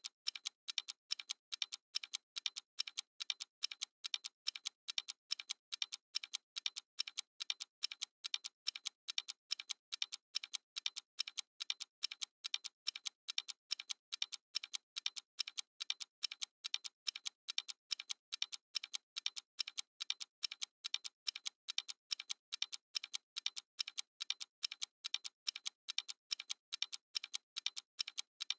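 Stopwatch ticking: an even, unbroken run of sharp, thin ticks, several a second.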